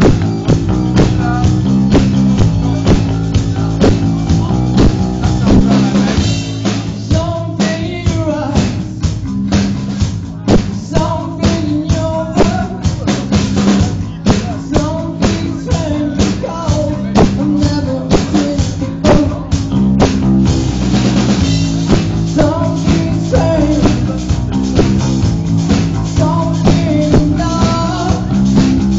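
Rock band playing live: a drum kit keeps a steady beat, with bass guitar underneath.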